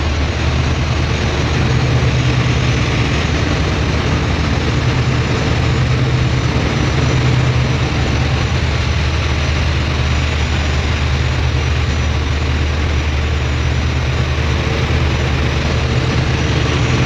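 Loud, steady drone of running marine diesel engines and machinery in a ship's engine room, with a strong deep hum under an even mechanical roar.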